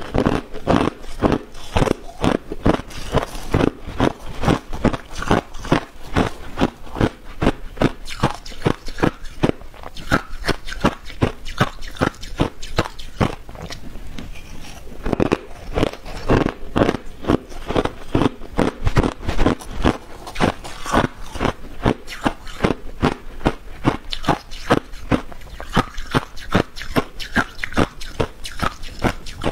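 Crushed ice being bitten and chewed in close-up: a steady run of crisp, crackling crunches, several a second.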